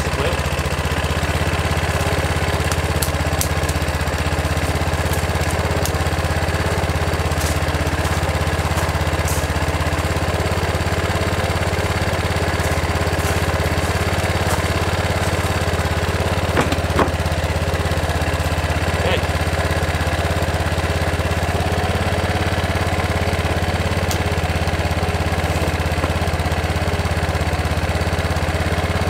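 Bashan 250 Chinese ATV engine idling steadily, with two brief sharp clicks a little over halfway through.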